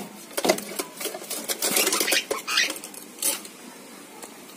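Javan myna working dry nesting grass into a wooden nest box: a run of short scratchy rustles and clicks.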